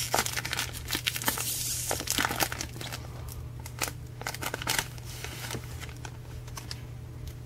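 Foil Pokémon booster-pack wrapper crinkling as it is peeled open and the cards are slid out, a dense run of crackles for the first few seconds, then sparser.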